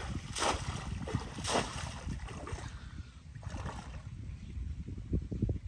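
A few splashes in shallow water, about three of them, over a low rumble of wind on the microphone.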